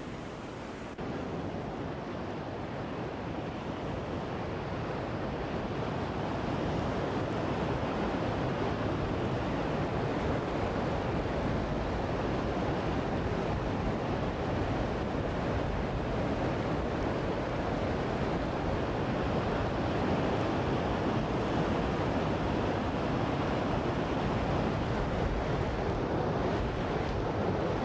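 Mountain stream rushing over rocks, a steady noise of fast water that gets louder about a second in and then holds.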